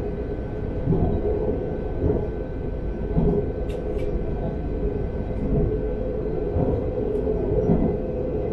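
Talent 3 electric multiple unit running at speed, heard from the driver's cab: steady wheel-on-rail rumble with a thin steady whine. Two sharp clicks come close together about four seconds in.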